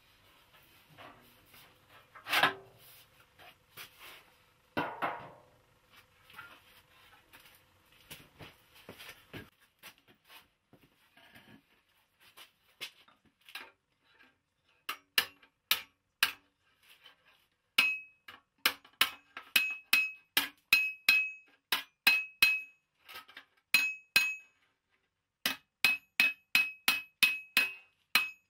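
Scraping and rubbing on the sheet-metal head of a carnyx, with two louder knocks. About halfway through, a small hammer starts tapping the head against an anvil horn: sharp metallic taps with a clear ringing note, in quick runs with short pauses.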